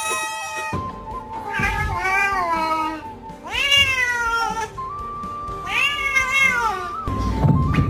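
Three drawn-out meows, each rising and then falling in pitch, over background music with a held note.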